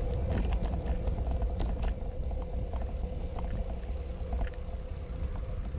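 Wind buffeting an action camera's microphone during a bicycle ride on a concrete street: a heavy low rumble with a steady hum, scattered small clicks and rattles from the bike and tyres.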